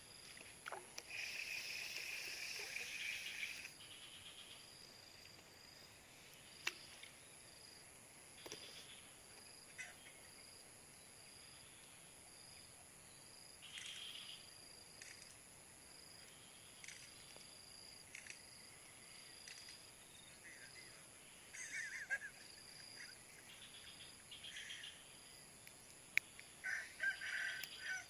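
Faint bird calls, the first a long call of about two and a half seconds a second in, then shorter calls later, over a steady high-pitched hum.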